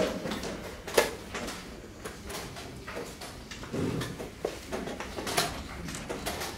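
Wooden chess pieces being set down on boards and chess clock buttons being pressed: a scatter of sharp clicks and knocks, the loudest about a second in.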